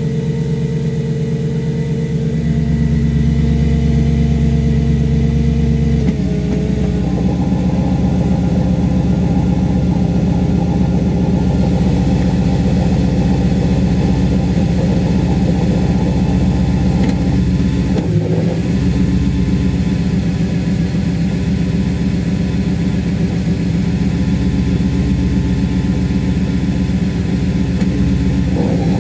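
Audi S4 B6's V8 running at idle with its cold Tiptronic automatic gearbox in gear: a steady drone whose tone changes a couple of seconds in and again about six seconds in. The noise comes from the cold transmission with a gear engaged and goes away after a short drive; the owner does not know its cause.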